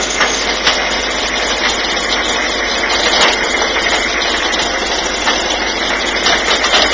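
An engine running steadily, heard as a loud, even noise.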